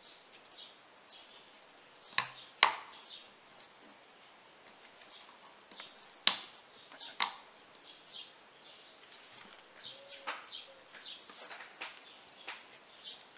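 Sharp plastic clicks and knocks, several of them spread out, as a small projector is handled and seated on a 3D-printed plastic stand. Birds chirp faintly in the background.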